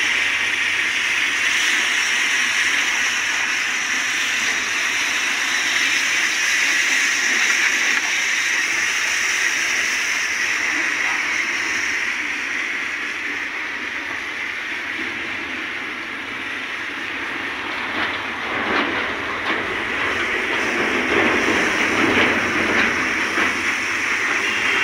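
High-pressure water jet from a washer hose hissing steadily as it sprays a tipper truck's steel body and wheels. It turns more uneven and spattery in the last several seconds.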